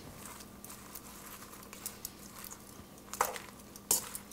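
Metal tongs tossing a spinach and red onion salad in a stainless steel bowl: a few faint ticks, then two sharp clinks of the tongs against the bowl near the end.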